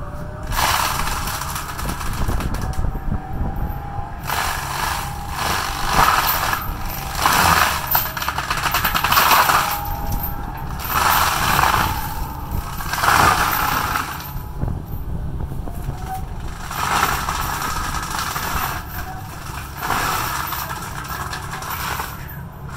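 Kobelco 140 excavator's diesel engine running under load while its cutting head chomps into brush and small trees, in repeated bursts of cutting noise about every one to two seconds.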